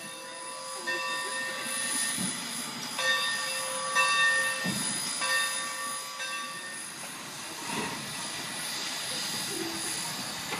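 Railroad turntable turning under the Santa Fe 3751 steam locomotive, giving a steady high metallic squeal that breaks off briefly twice, with a few dull knocks.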